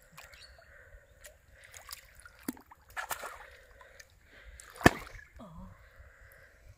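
Pond water splashing and sloshing around a bamboo fishing pole and float, in a few short separate splashes, with one loud sharp splash about five seconds in.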